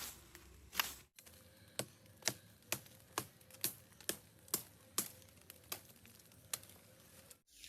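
A run of sharp, evenly spaced knocks, about two a second, starting just after a cut about a second in and stopping at another cut near the end.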